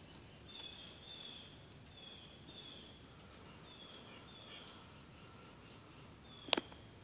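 A bird calling: short falling notes, often in pairs, repeated every second or so over a faint background hiss. A single sharp click about six and a half seconds in is the loudest sound.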